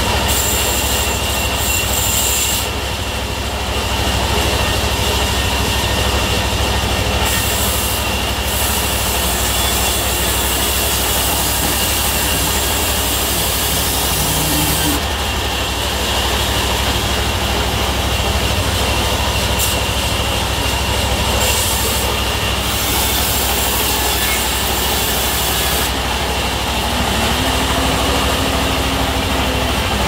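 Diesel-driven band sawmill running under a steady low drone while a teak plank is fed through the blade; the cut adds a high hissing whine that comes and goes several times.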